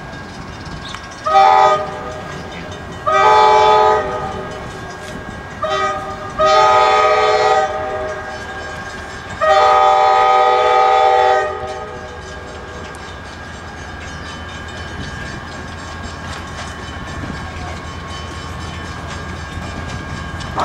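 Air horn of an arriving Amtrak passenger train sounding five blasts over about ten seconds, a chord of several steady tones, the last blast held about two seconds. Afterwards the train rolls in slowly with a steady low rumble.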